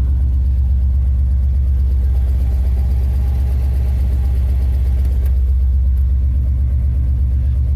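Ramp truck's engine running steadily just after a cold start in freezing weather, with a strong low, even firing pulse.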